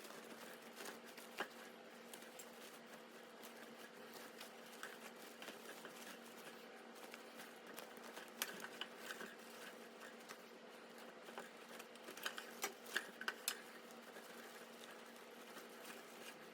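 Faint handling sounds as a ribbon bow and a small lantern are turned and adjusted by hand: scattered light clicks and taps, bunched about halfway through and again near the end, over a steady low hum.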